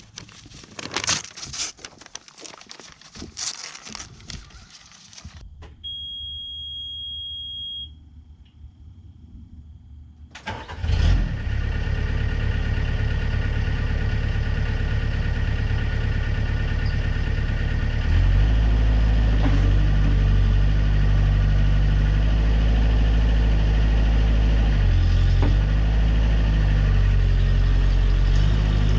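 Clattering knocks, then a steady high beep for about two seconds; about ten seconds in a mini excavator's engine starts and settles into a steady run, then steps up to a louder, higher throttle about eighteen seconds in.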